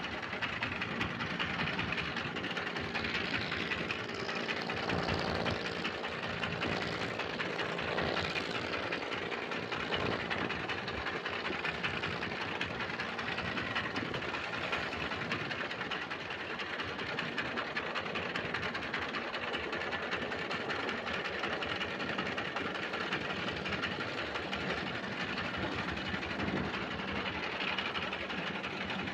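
Boat engine running steadily under way, with water rushing past the hull and wind noise.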